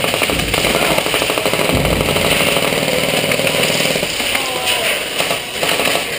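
Airsoft electric gun firing a long full-auto burst, a rapid steady rattle of shots that stops about four seconds in.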